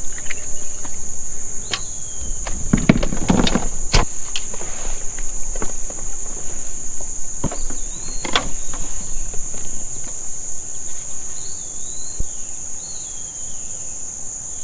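Summer insects droning steadily with a high-pitched buzz, with a few hollow knocks and clatters a few seconds in and again around the middle, and short bird chirps near the end.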